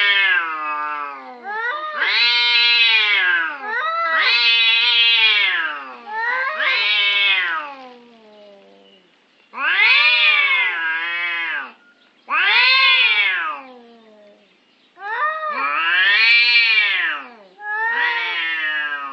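Domestic cats caterwauling in a territorial standoff: about eight long, drawn-out yowls, each rising and then falling in pitch, following one another with short pauses.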